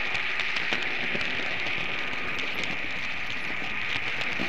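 Märklin model train running along the track, heard from the camera riding on it: a steady rushing hiss with faint, irregular clicks as the wheels pass over the rails and points.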